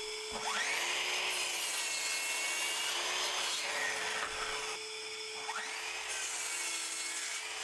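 Sliding mitre saw cutting through 3x2 softwood timber, twice. Each time a whine rises as the motor spins up, then the blade runs through the wood.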